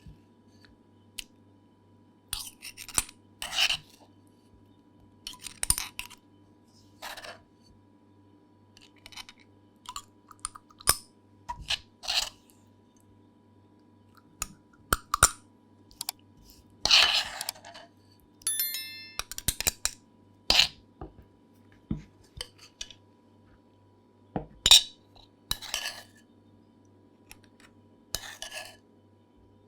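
Kitchen dishes and utensils being handled: a series of separate clinks and knocks, irregularly spaced about a second or two apart, over a faint steady hum.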